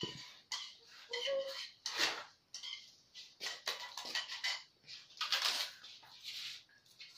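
Dry rice paper sheets (bánh tráng) crackling and rustling as they are handled and pulled from a pile, in irregular crinkly crackles.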